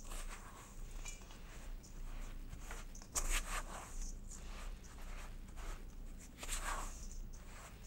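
Silicone spatula scraping and stirring glutinous rice flour and mashed boiled taro in a stainless steel bowl: a string of irregular soft scrapes and rustles, the firmest strokes about three seconds in and again about six and a half seconds in.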